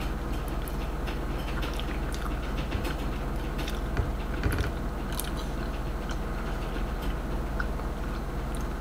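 Two people chewing spoonfuls of soft rehydrated freeze-dried chili mac, with scattered small clicks, over a steady low hum.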